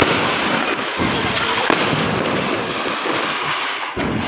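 Ground firework spraying sparks: a steady, loud hissing crackle, with a few sharp pops, the first right at the start and another about a second in.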